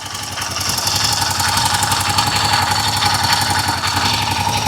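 Royal Enfield Himalayan 450's single-cylinder engine idling steadily, heard close from the side, getting louder over about the first second. A new hydraulic cam chain tensioner is fitted, and the owner judges that the heavy clatter is gone though a little noise remains.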